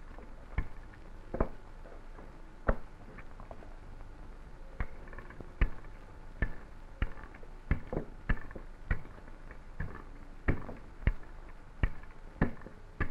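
Pizza dough being rolled out thin with a rolling pin on a board: a run of short dull knocks, irregular, about one or two a second, as the pin comes down and is pushed across the dough.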